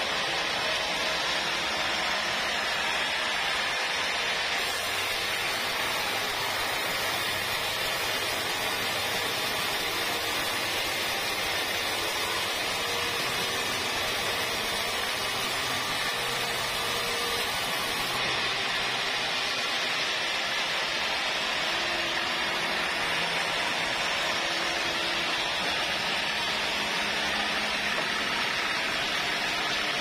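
Band sawmill running, its blade cutting lengthwise through a teak log: a steady, unbroken hiss of saw and wood.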